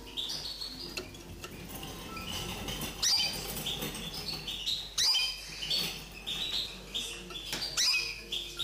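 Common linnet × canary hybrid singing: a fast, unbroken run of short high twittering notes, with loud sharp upward-sweeping notes about three and five seconds in.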